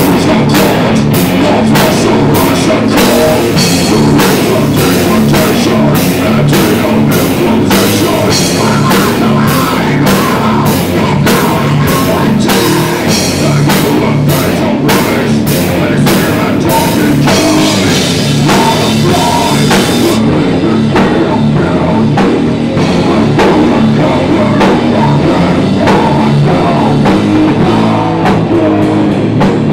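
Live heavy metal band playing: electric guitar and bass over a drum kit, with cymbal crashes on a steady beat. About two-thirds of the way in the cymbal crashes stop and the guitars and drums carry on.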